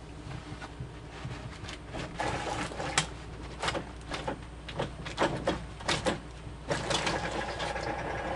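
Someone moving about in a truck cab: a run of short knocks and clicks mixed with rustling, starting about two seconds in, over a steady low hum.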